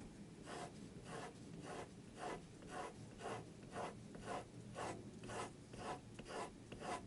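0.7 mm HB mechanical pencil lead scratching across paper in a run of short, evenly spaced strokes, about two a second, as lines are drawn.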